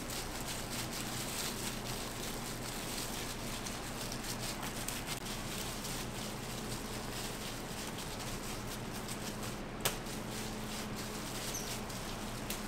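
Waffle-shop kitchen noise: a steady hum with a light patter of small clicks and crackles, and one sharp click about ten seconds in.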